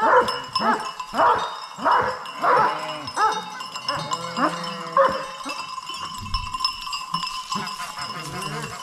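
Dogs barking in a quick run of barks, thinning out about two seconds in into longer rising-and-falling calls and then scattered, quieter yelps, over a steady faint high ringing.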